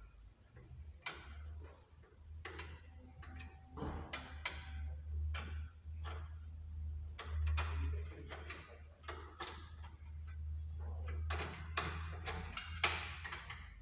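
Irregular metallic clicks, ticks and knocks of hand tools working on a car's underside, with a steady low hum.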